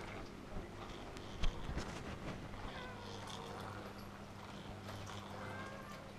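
Animal calls from an electromechanical nativity scene's sound effects, two wavering cries, over a steady electrical hum, with a single knock about one and a half seconds in.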